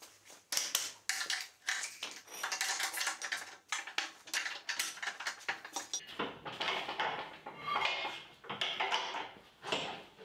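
Steel parts of a scissor car lift clanking and clinking irregularly as they are handled and fitted, with the lift arms going onto the frame. It turns denser and rougher in the second half, with scraping and rattling between the knocks.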